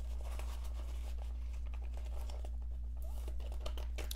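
Paper banknotes and a paper envelope rustling and crinkling as they are handled and slipped into a clear plastic binder pocket, over a steady low hum.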